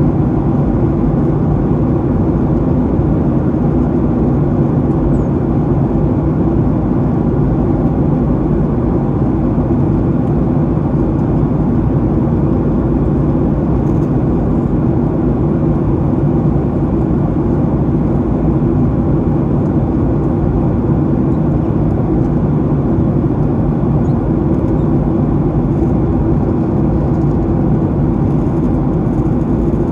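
Steady engine and airflow noise inside the cabin of a Boeing 737-800 in flight, heard from a seat behind the wing, with its CFM56-7B turbofans giving a low even hum under the rush of air.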